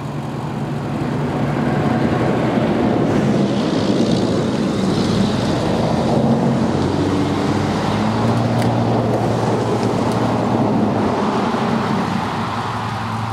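Pontiac Grand Am's engine revving under load as the car is inched up a steep ramp into a box truck. The engine note swells about a second or two in, rises and falls through the middle, and eases slightly near the end.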